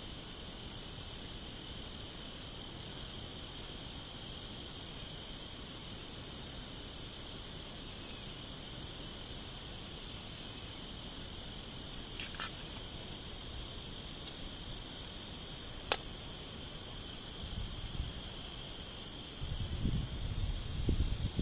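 A steady chorus of field insects, a continuous high trilling buzz, with a couple of faint clicks around the middle. Near the end, rustling of a bundle of dry grass tinder being handled.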